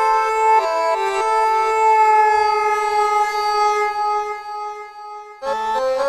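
Instrumental background music: a stepped melody moving into one long held note that fades away, a brief gap, then a new phrase with bending, gliding notes near the end.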